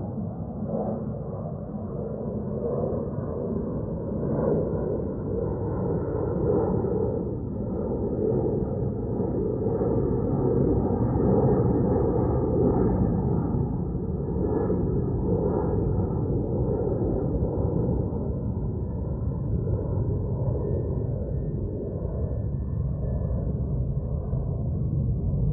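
Steady low outdoor rumble that swells and eases gently, with no distinct events.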